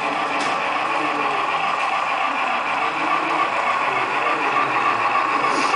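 HO scale DCC model of a Big Boy 4-8-8-4 locomotive running along the track with a steady whir, with a brief click about half a second in and another near the end.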